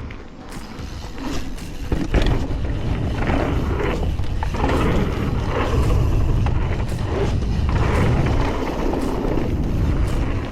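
Mountain bike riding down a dirt trail: tyres rolling on the ground and wind rumbling on the camera's microphone, with knocks and rattles as the bike goes over bumps. The rumble grows loud about two seconds in and stays up.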